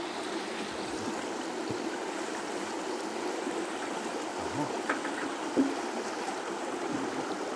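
Shallow rocky stream rushing steadily, with a couple of short gurgles about halfway through as a tuba is dipped into the water.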